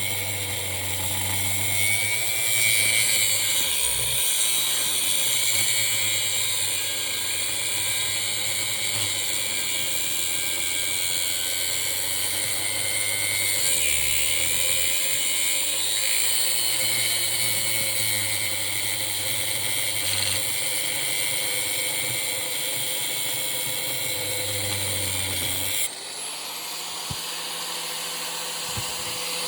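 A power tool runs steadily with a loud high-pitched whine. About three-quarters of the way through, its sound changes abruptly and the low hum drops out.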